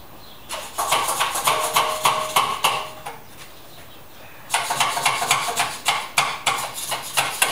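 Hand-cranked winch of a panel lift ratcheting: rapid metallic clicking, several clicks a second, in two runs with a pause of about a second and a half between them.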